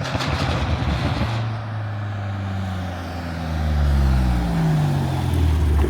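BMW F90 M5's twin-turbo V8 running through a catless straight-piped exhaust. It opens with a sudden loud burst of engine sound, then the engine note falls in pitch over a couple of seconds while a deep low rumble swells near the end.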